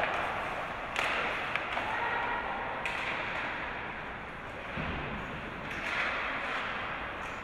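Hockey play in a rink: swelling bursts of scraping from skates, with sharp stick-and-puck clacks and a thud.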